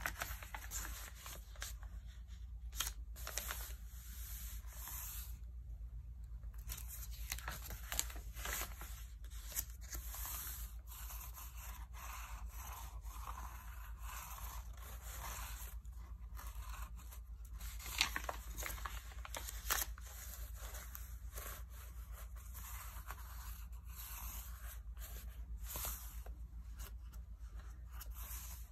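Glossy magazine pages being handled by hand: continuous rustling and crinkling of the paper as the hands rub and smooth the pages, with a few sharper crackles and the rustle of pages turning over.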